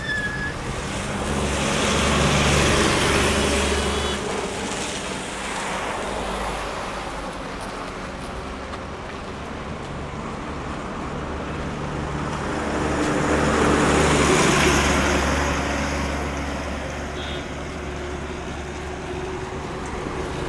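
Road traffic: vehicles passing on the road, swelling loudest about 3 seconds in and again about 14 seconds in, over a steady low engine hum.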